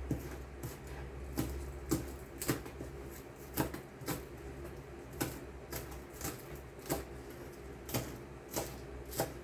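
Kitchen knife chopping onion on a cutting board: sharp, separate knocks of the blade on the board, about one every half-second to second.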